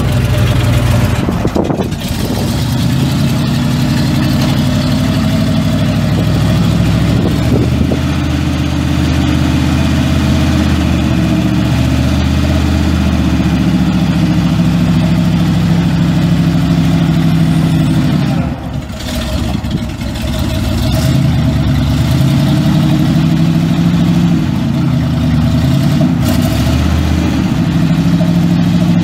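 Chevrolet Kodiak C70 dump truck's 6.0-litre V8 gasoline engine running, its engine speed changing several times, with a brief drop in level and pitch about two-thirds of the way through before it picks up again.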